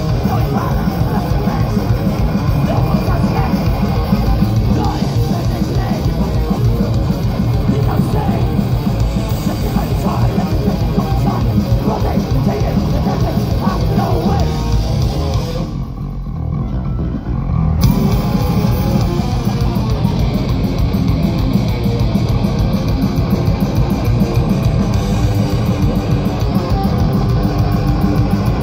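A live thrash metal band playing loud, with distorted electric guitars, bass and drums, heard from within the crowd. About two-thirds through, the high end drops away and the sound thins for about two seconds, then the full band comes back in.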